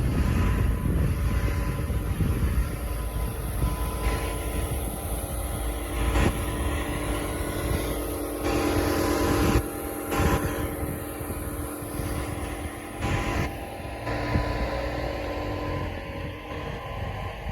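Air compressor running steadily, pumping air into fire-sprinkler piping, with a low rumble and a steady pitched hum. A few short bursts of rushing noise cut in over the middle of it.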